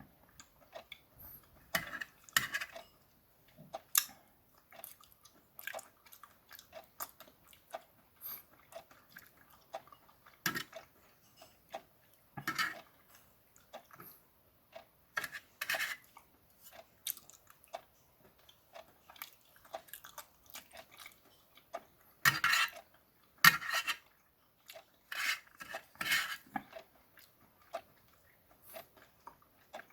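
Eating raw oysters: irregular clinks of utensils against a dish mixed with close-up chewing sounds, a few louder clatters now and then.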